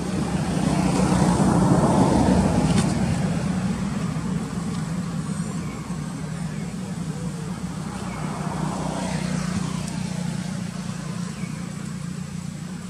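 Road traffic: a motor vehicle's engine running with a steady low hum, its noise swelling as it passes about two seconds in and fading, with a second, smaller swell later.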